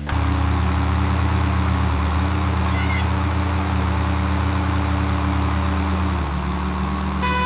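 Cartoon engine sound effect, a vehicle's motor running steadily with a deep hum, easing slightly about six seconds in, with a short beep-like tone near the end.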